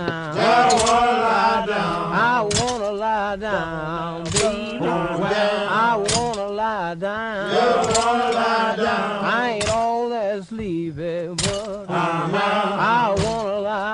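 Voices singing a slow work song with no clear words: a wavering melodic line over a low held hum, and a sharp strike keeping time about every two seconds.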